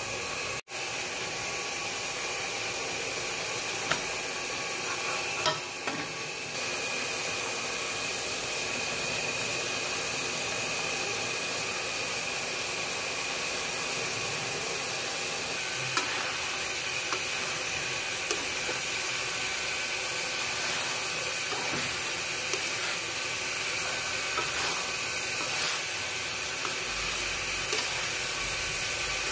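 Coconut-milk sauce cooking in a wok: a steady sizzling hiss, with occasional sharp clicks and scrapes of a metal spatula against the wok.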